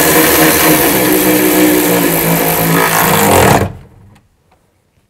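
Cordless electric ratchet running under load as it runs the window regulator's mounting nuts down, then stopping abruptly about three and a half seconds in. A few faint clicks follow.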